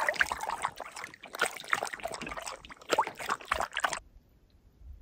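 Water splashing and trickling around a canoe paddle as the canoe is paddled away from shore. The sound cuts off suddenly about four seconds in.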